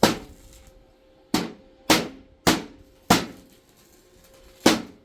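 Hammer striking metal in six sharp blows with short ringing tails, spaced unevenly, with a longer pause before the last one.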